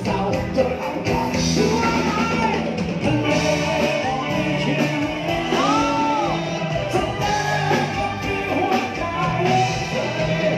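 Live band music with a lead voice singing over electric bass and drums, playing steadily without a break.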